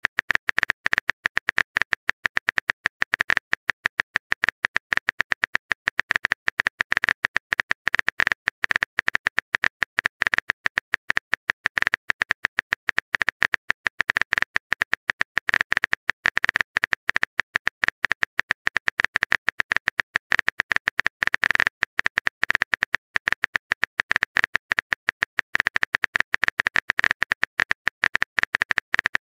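Simulated phone-keyboard typing clicks from a texting-story app: a fast, even, unbroken string of short ticks, one per letter typed.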